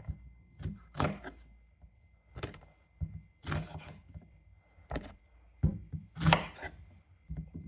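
Knife cutting lemons on a cutting board: about a dozen irregular knocks of the blade on the board, some closer together than others.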